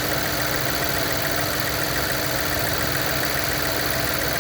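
2024 Chevrolet Trailblazer idling steadily with the air conditioning on max, the engine and AC system running with no clear break or click.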